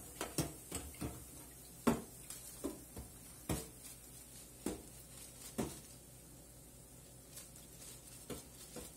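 Irregular clicking and light clattering of kitchen utensils against cookware: about a dozen sharp knocks in the first six seconds, then a few fainter ones near the end.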